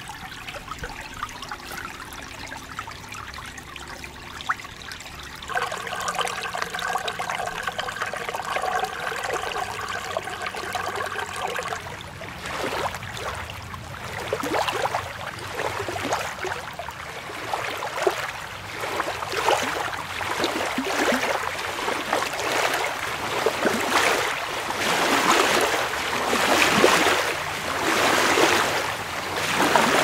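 Small waves lapping and splashing against stones at the water's edge, in repeated washes a second or so apart that grow louder toward the end. Before that, a steady hum with several pitches is heard for about six seconds.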